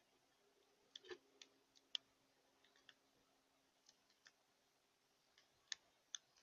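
Faint, irregular sharp clicks and taps, about a dozen scattered over near silence, the loudest about two seconds in and near the end.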